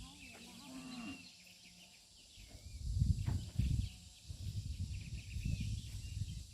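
Wind buffeting the microphone in uneven low rumbles, loudest from about halfway through. In the first second there is a brief wavering animal call.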